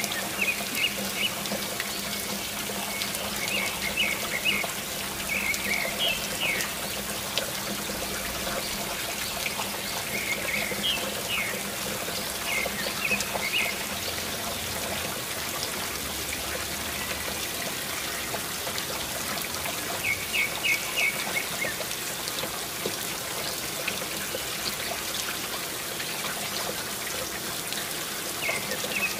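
Small birds chirping in short clusters of quick high notes, on and off, over a steady rushing hiss like running water and a low hum.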